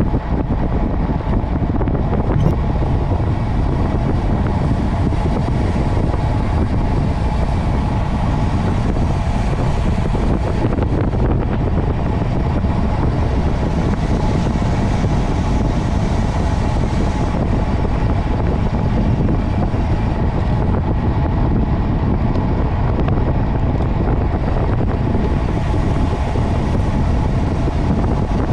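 Steady wind rush on the microphone and road noise from a vehicle moving at speed, with a faint steady engine note underneath.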